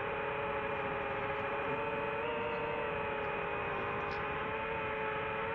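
DJI FPV quadcopter's motors and propellers running at a steady cruise, a droning multi-tone whine that rises slightly in pitch about two seconds in.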